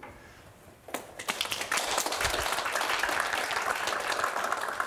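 Audience applauding, starting about a second in and quickly settling into steady clapping.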